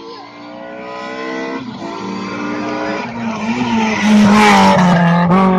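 Rally car at full throttle approaching, its engine pitch climbing through the gears with two quick gear changes, then passing close about four seconds in with a loud rush of engine and tyre noise.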